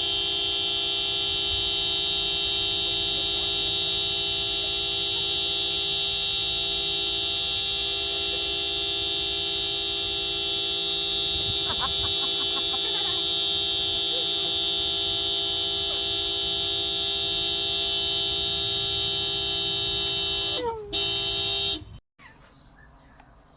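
Car horn held down by a dog, sounding one long steady note without a break for about twenty seconds, with a short wobble just before it stops abruptly.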